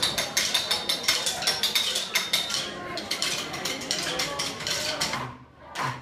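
Rapid rhythmic tapping and clattering of wooden sticks in a stick-percussion routine, about five hits a second, dying away about five seconds in.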